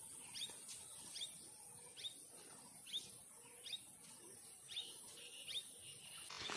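A small bird chirping over and over, short faint chirps at about two a second.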